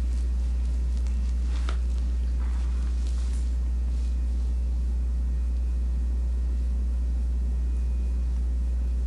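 A steady low hum that does not change, with faint rustles in the first few seconds.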